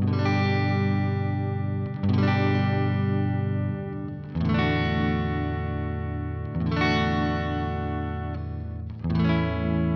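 EwiDark black electric guitar played on its neck pickup through a Marshall amp head and recorded direct by USB. Five chords are strummed about two seconds apart, and each is left to ring.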